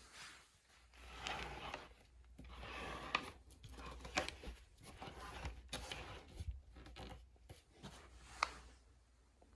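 Irregular rustling and scraping handling noises with several sharp clicks, over a low steady hum.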